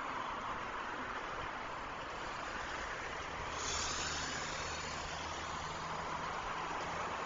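Road traffic passing on a multi-lane city highway: a steady rush of tyre noise. About halfway through, a sudden hiss comes in, and a heavy vehicle's low engine hum runs under the traffic from then on.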